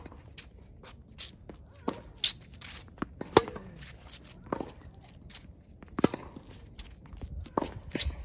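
Tennis rally on a hard court: a run of sharp pops as the ball is struck by racquets and bounces on the court, about one every second or so, the loudest coming from the near player's shots. Footsteps shuffle on the court between shots.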